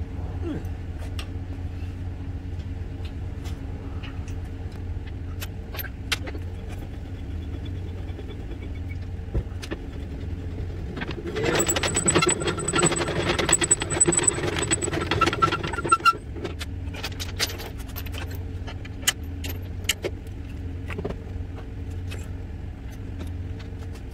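Pickup truck engine idling steadily behind a hand-cranked trailer tongue jack. For about four seconds near the middle the jack is wound, a grinding whir of its gears, and scattered metallic clinks of safety chains follow.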